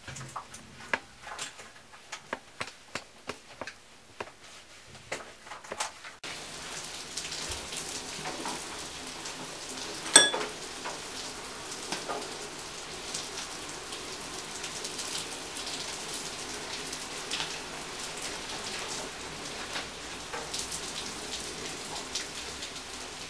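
Rapid irregular small clicks for about six seconds, then steady rain with scattered light clicks and one sharp knock about ten seconds in.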